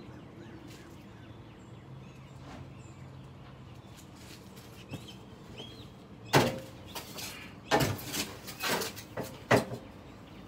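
Shovel scraping and scooping dirt in a wheelbarrow tray: a cluster of about six sharp, loud scrapes and knocks in the second half, after a few seconds of low outdoor background.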